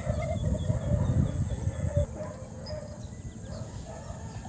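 Outdoor ambience: wind rumbling on the microphone, strongest in the first two seconds, with faint, scattered chicken calls in the distance.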